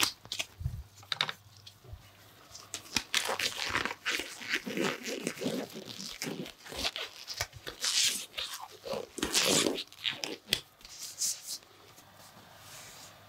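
Close-miked, irregular rubbing, crinkling and crackling from hands working during a facial massage, dying down near the end.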